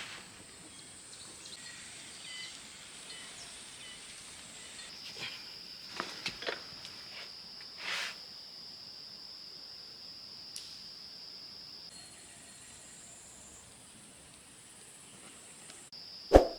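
Forest insects calling in steady high-pitched tones, one pitch giving way to another every few seconds, with a few faint clicks. A single sharp knock sounds near the end.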